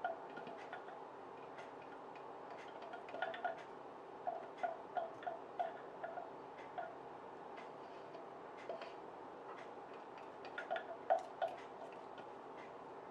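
A kitchen utensil tapping and clicking against a bowl while minced garlic is scraped and pressed into it: irregular light taps with a short ringing note, some in quick runs, the loudest a little past the middle and again near the end.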